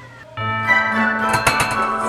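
Background music that comes in about a third of a second in: a plucked-string melody with light percussive clicks.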